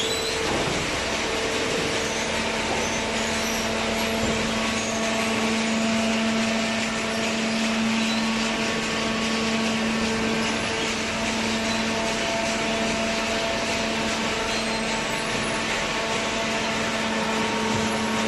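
Hydraulic cardboard baler running, its electric motor and hydraulic pump giving a steady hum over a constant hiss. A low hum tone comes in about a second and a half in and holds.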